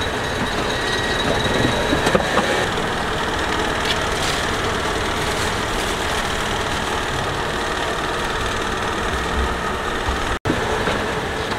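A car's engine running steadily as the car creeps forward, its tyre rolling over and squashing soft objects, with a few faint clicks. The sound drops out for a moment near the end.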